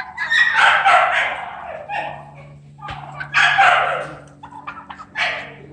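Young turkeys gobbling in three rough, rattling bursts, the first the longest.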